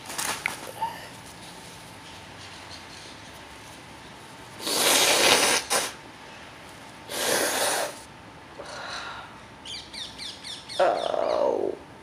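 A man sneezing over and over in a fit: two loud sneezes about five and seven seconds in, then a quick run of short sharp sounds and a third, voiced sneeze near the end.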